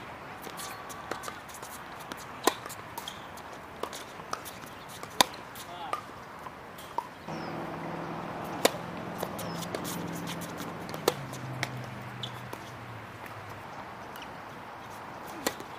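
Tennis rally: sharp pops of a tennis ball struck by rackets and bouncing on the court every couple of seconds. A low droning hum comes in about halfway through, drops in pitch and fades out.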